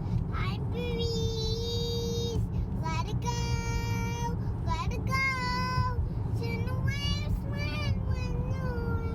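A high voice singing a string of long held notes, some slightly bending, over a steady low rumble.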